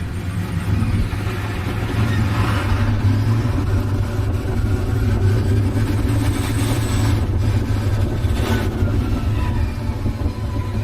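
Motorcycle engine running steadily on the move, with a low drone and a constant rush of wind and road noise.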